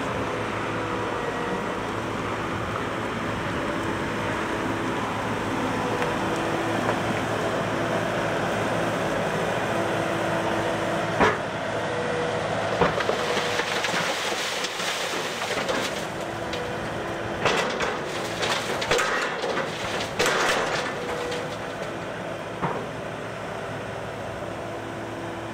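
Wheeled excavator's diesel engine running steadily with a hum, while the towed trailer is tipped. Sharp knocks come through the middle, then a burst of clattering bangs as the load of earth and stones slides out of the raised trailer bed.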